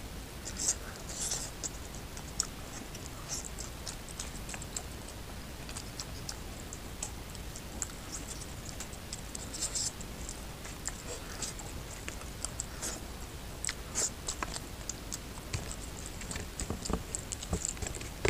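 Fingers squishing and kneading rice with oily curry on a steel plate, making scattered soft wet clicks and crackles.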